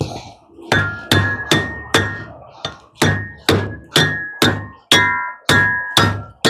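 A hammer striking metal parts of a scrapped washing machine, steady blows about two a second, each with a short metallic ring.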